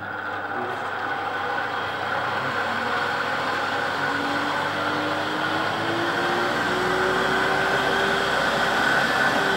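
Electric forge blower running, driving air up through the forge fire: a steady rush of air that grows louder over the first few seconds, with a faint hum rising slowly in pitch from about four seconds in as the fan comes up to speed.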